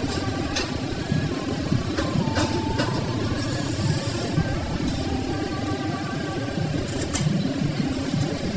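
Steady diesel rumble of heavy machinery, a hydraulic excavator and dump trucks working sand, with scattered clanks and a short high hiss about three and a half seconds in.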